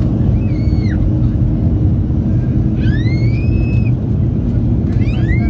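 Boeing 737-800's CFM56 jet engines at takeoff thrust, heard from inside the cabin during the takeoff roll: a loud, steady rumble with a constant hum. Three short, high rising tones sound over it, about half a second in, near the middle and near the end.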